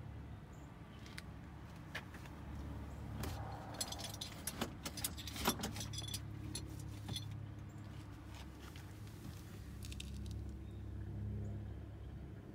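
Light metallic jingling and clicking for several seconds, starting about two seconds in and dying away after about seven seconds, over a steady low hum.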